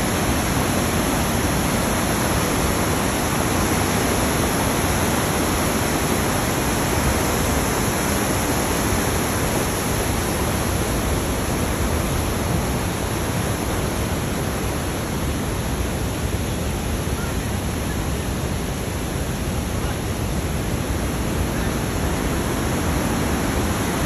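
Water rushing steadily over a low, wide river cascade: an even, unbroken rush of whitewater with no change in level.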